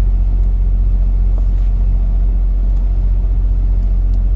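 Steady low rumble with a few faint, light ticks.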